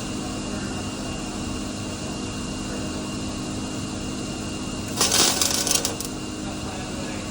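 A welding arc crackling for about a second, a short weld or tack, about five seconds in, over a steady shop hum.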